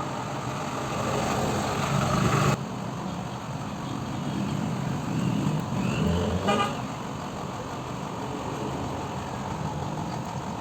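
Steady noise of road traffic, with a short vehicle horn toot about six and a half seconds in. The background noise changes abruptly about two and a half seconds in.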